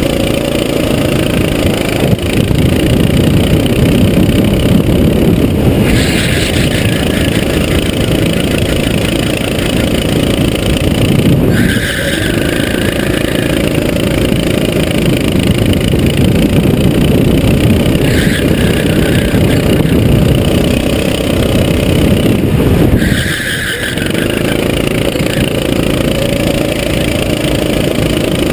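Sodi SR4 rental go-kart engine heard from on board, running hard at high revs. The note eases and picks up again several times as the kart lifts off for corners and accelerates out.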